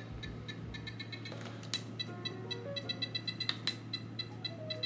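FlySky FS-i6 transmitter beeping as its trim switch is pressed repeatedly: a quick series of short electronic beeps that step up in pitch as the trim moves off centre, with a few plastic switch clicks.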